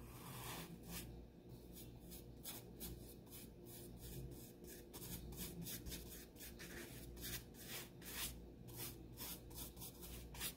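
Flat paintbrush laying black paint onto paper in short, quick strokes, each a brief scratchy brushing sound, about three a second.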